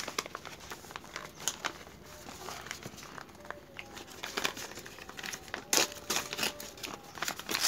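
Packaging wrap crinkling and rustling as hands unfold it from a small cardboard box, in irregular crackles, with a louder rustle about six seconds in.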